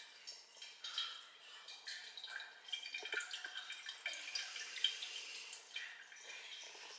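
Irregular dripping and gurgling noises coming from inside a wall, a sound taken for snoring. Short high blips follow one another unevenly.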